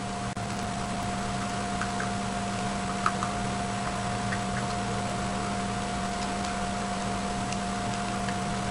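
Steady room noise with a constant electrical hum, broken by a few faint, irregular small clicks.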